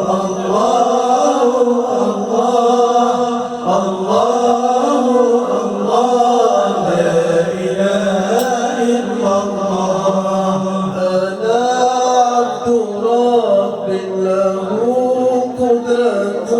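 Voices chanting an Islamic nasheed, a devotional dhikr chant: a steady low held note runs under a melodic vocal line that rises and falls.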